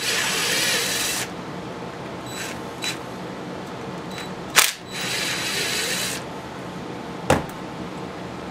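Cordless drill spinning a socket to back out the chainsaw's muffler bolts: two short runs of about a second each, with a few sharp clicks between and after.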